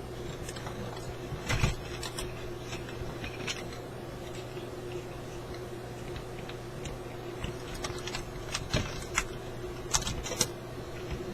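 Scattered clicks and light taps of small parts and tools being handled while a car radio is reassembled, over a steady low hum; the sharpest clicks come about one and a half seconds in and again near the end.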